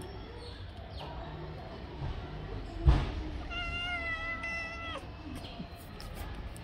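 Tabby cat meowing once: one long, steady call lasting about a second and a half, a little after the middle. Just before it, at about three seconds in, comes a sharp thump, the loudest sound.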